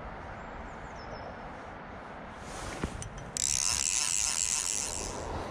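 Fly reel's click-and-pawl check ratcheting as line is wound in, a rapid high clicking that starts suddenly about three and a half seconds in and eases off near the end, over a steady low background hiss.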